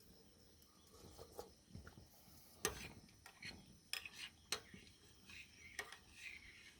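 Faint clinks and light scraping of an eating utensil in a dish of pasta and soup as a bite is taken, with a few short sharp clicks spread across the quiet.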